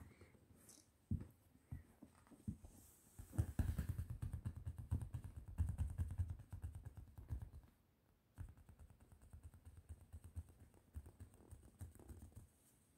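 Fingers scratching and patting a leather sofa cushion, a few separate knocks followed by two longer runs of rapid scratching.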